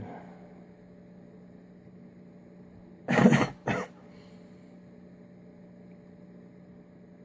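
A man coughs, a loud burst about three seconds in followed by a shorter one, over a steady electrical mains hum.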